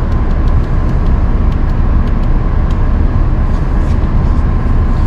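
Steady, loud low rumble with a faint steady whine: the running machinery of a stone-cutting CNC saw shop.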